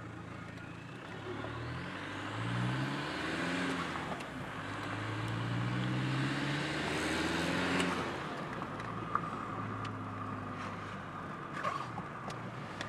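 Opel Vectra B turbodiesel engine accelerating hard, heard from inside the cabin with the turbo whistle rising with it. The engine note climbs from about a second in, drops at a gear change around four seconds, climbs again, then falls away as the throttle is lifted near eight seconds.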